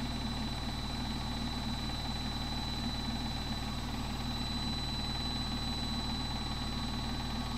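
Samsung WF80 front-loading washing machine in the main spin of a spin-only cycle, its drum spinning at a steady speed with an even low hum and a thin, steady high-pitched tone over it.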